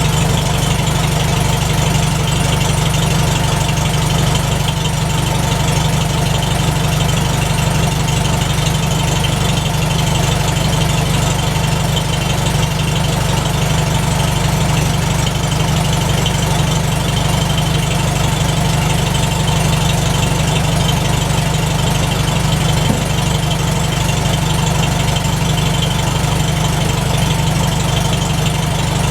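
McCormick Deering W-4 tractor's four-cylinder engine running steadily at idle, a fast even low-pitched beat, on its first run since standing over the winter.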